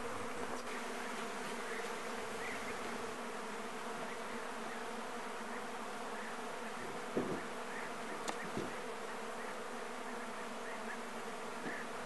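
A mass of honeybees buzzing steadily around an opened hive, stirred up as the honey frames are shaken and brushed clear of bees. Two soft knocks come a little past the middle.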